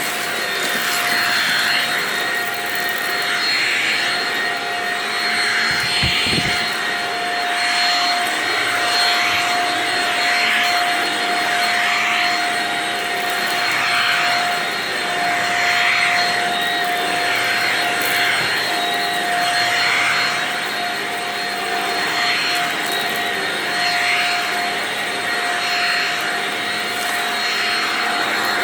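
Vacuum cleaner running steadily with a fixed whine, its suction noise swelling and easing about every two seconds as it picks up dry debris. A brief low thump comes about six seconds in.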